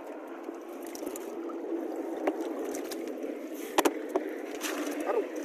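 Water sloshing and dripping as a cast net full of tilapia is hauled out of shallow pond water, with a few sharp knocks near the end as the net and fish drop into a plastic tub.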